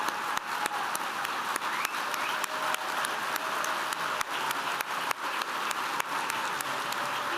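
Audience applauding: many people clapping steadily and densely throughout.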